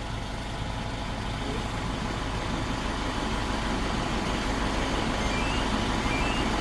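Daewoo The Cen truck's diesel engine idling steadily after a remote start from the smartphone start alarm.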